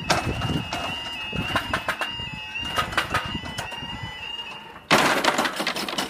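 Level crossing warning alarm sounding, a high two-tone yodel stepping back and forth between two close notes. About five seconds in it gives way to a sudden, louder burst of rapid rattling.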